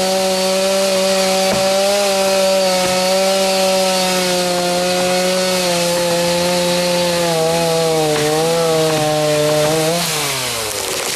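Chainsaw running at high throttle, cutting a storm-felled tree. Its pitch wavers about eight seconds in and slides down near the end as the throttle is let off.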